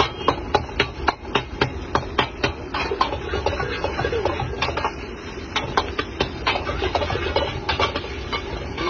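Metal ladle knocking and scraping against an iron wok as food is stir-fried, a quick run of clicks at about three to four a second, then more scattered strokes. A steady low rumble sits underneath.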